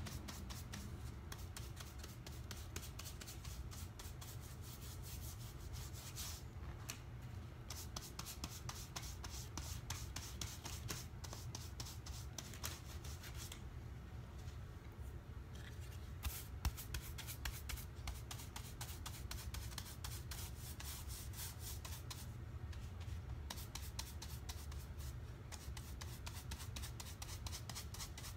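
Rapid, scratchy rubbing strokes as graphite chalk paint is worked lightly through a laser-cut mylar stencil onto a wooden floor. The strokes come in spells with a few short pauses, over a steady low hum.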